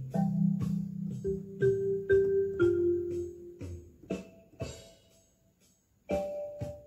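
Background music: a slow keyboard melody of struck notes, with a short pause near the end before it resumes.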